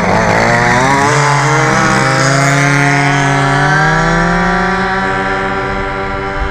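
Small two-stroke engine of a 1/5-scale gas RC buggy revving unevenly, then pulling away about a second in. Its pitch climbs steadily for a few seconds, then levels off and fades slightly as the buggy drives off.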